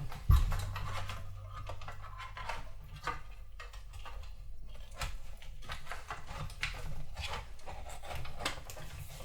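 Scattered light clicks and clattering of metal and plastic as a floppy drive is handled and slid into a PC case's drive bay, with a knock just after the start.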